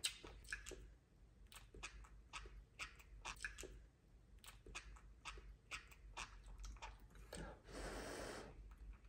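Faint, irregular little clicks and smacks of a baby monkey chewing soft noodles. Near the end comes a soft hiss of about a second.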